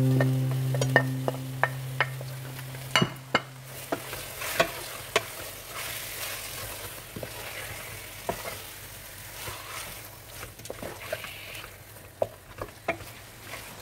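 Spoon clicking and scraping against a metal cooking pot while marinated chicken is stirred, over a faint sizzle. Sustained background music notes end about three seconds in.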